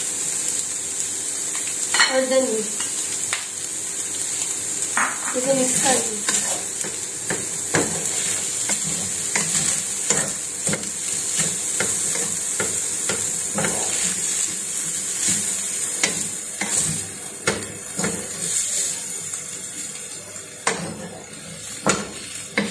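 Shredded chicken and spices sizzling in a black frying pan while a wooden spatula stirs and scrapes the pan again and again. A steady frying hiss runs under the irregular scrapes and knocks of the spatula.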